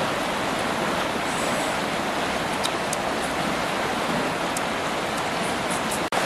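Fast-flowing river water rushing over rocks, a steady, even rush, with a few faint light clicks.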